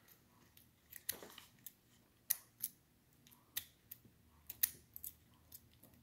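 Scattered faint metal clicks and taps of a key being worked in and out of a brass pin-tumbler lock cylinder.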